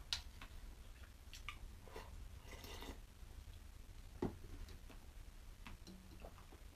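Quiet eating sounds: light clicks of wooden chopsticks against a lacquered soup bowl, with one sharper knock about four seconds in, a brief rustle and faint chewing.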